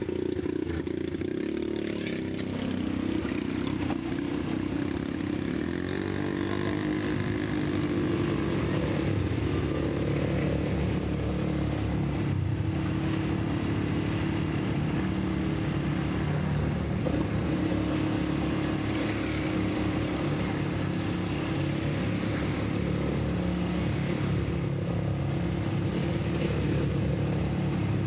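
ATV (quad bike) engines running at a slow, steady riding pace over a rough trail. The engine pitch wavers up and down a few seconds in, then holds steady.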